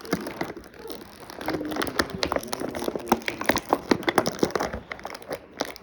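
Plastic toy packaging being handled and pried open: crinkling with many sharp clicks and snaps, busiest in the middle.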